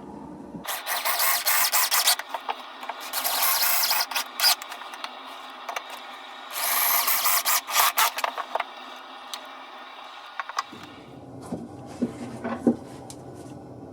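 Scratchy rubbing on wood in three long strokes, typical of hand sanding or rasping. Light clicks and knocks fall between the strokes, and a few small knocks come near the end.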